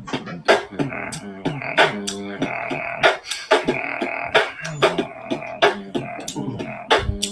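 Beatboxing: a rhythmic vocal beat of sharp snare-like hits, about two a second, with hummed bass tones between them.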